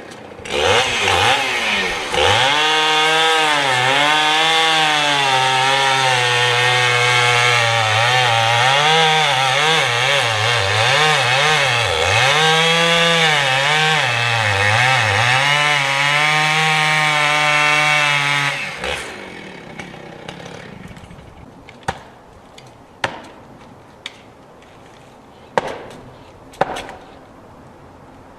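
Chainsaw running and cutting wood, its pitch dipping and recovering again and again as the chain bogs in the cut. It stops about 19 seconds in, followed by several sharp knocks.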